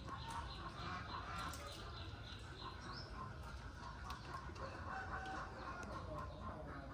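Faint chatter of short, rapidly repeated animal calls over a steady low background rumble.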